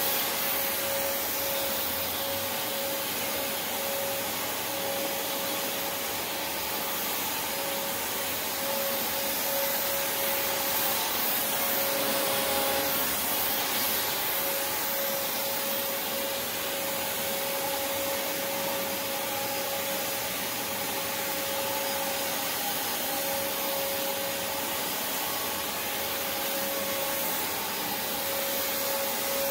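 Prolux X8 Elite backpack vacuum cleaner running steadily, a constant motor tone over a hiss of air.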